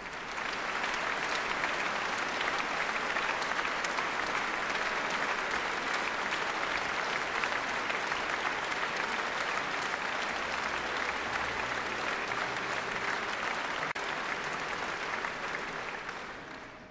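Concert hall audience applauding steadily, dying away near the end.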